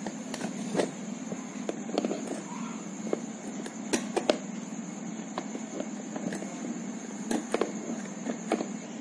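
Needle-nose pliers clicking and scraping as they grip and turn a small nut on the plastic base of an egg steamer, a few sharper ticks scattered through, over a steady low hum.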